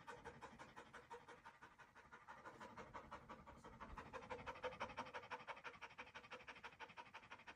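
Faint, rapid panting, about six or seven breaths a second, a little louder around the middle and then fading again.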